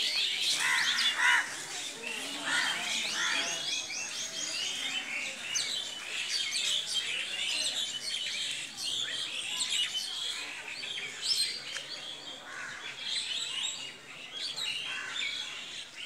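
Many birds chirping and calling at once: a dense chorus of short, high, overlapping chirps and twitters, with a quick run of repeated high notes about six seconds in.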